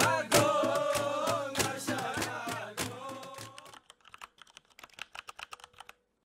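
Background music fading out over the first four seconds, with rapid keyboard-typing clicks running through it. The clicks go on alone, faint, at about five a second, and stop near the end.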